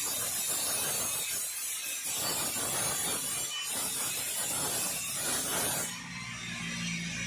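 Stainless steel diamond-plate sheet scraping and rubbing on a workbench as it is pushed into position, a rough rasping noise in irregular strokes. About six seconds in the rasping stops and a steady low hum takes over.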